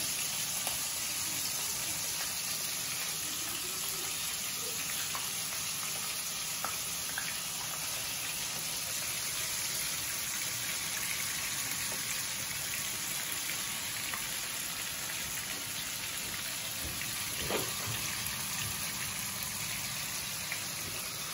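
Cassava vada balls deep-frying in a pan of hot oil: a steady bubbling sizzle, with a single light knock about three-quarters of the way through.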